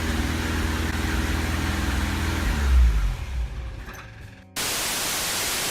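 A motor runs steadily, then drops in pitch and fades as it winds down about two and a half seconds in. About a second later, an even hiss like static cuts in abruptly and lasts about a second.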